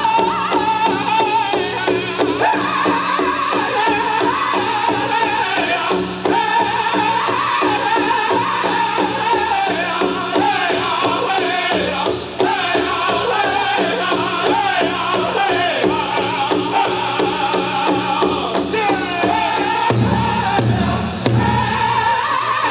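Powwow drum group singing a contest song over a big drum struck in a steady, driving beat, with dancers' bells jingling. The drum beats grow heavier near the end.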